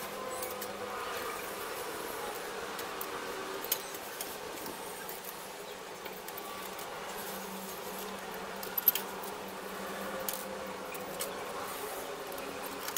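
Light clicks and taps of aluminium antenna rods being handled and fitted into a plastic antenna hub, with a sharp double click about nine seconds in, over a steady buzzing drone.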